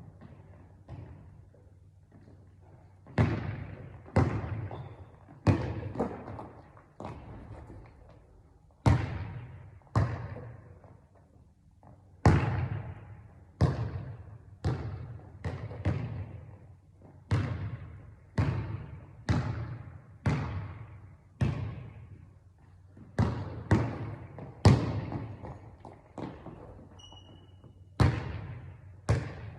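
Basketball bouncing on a hard court floor, about one bounce a second, each bounce echoing briefly. The first few bounces are soft; from about three seconds in they are loud and sharp.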